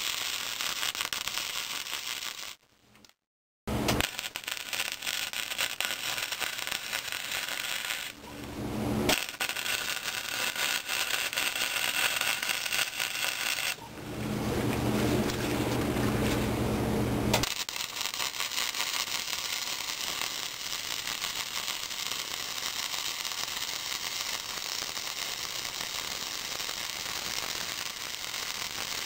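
Hobart Handler 120 MIG welder running flux-core wire, the arc crackling and sizzling steadily on steel in several runs. The welding stops for a pause of about three seconds in the middle, with a low hum in place of the crackle.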